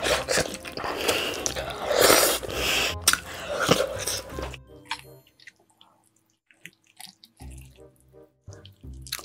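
Close-miked wet, sticky eating sounds of saucy roast chicken being bitten and chewed, with gloved hands handling the meat. The sounds are loud and dense for the first half, then thin out to scattered quieter smacks and clicks.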